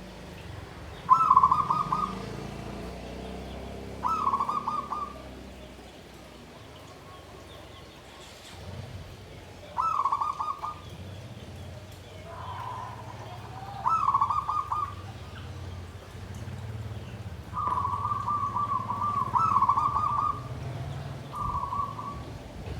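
Zebra dove (perkutut) singing its rolling 'klarr kete kuk kuk' song: short trilled cooing phrases of about a second each, repeated every few seconds, with one longer phrase of about three seconds near the end. A low steady hum lies under it.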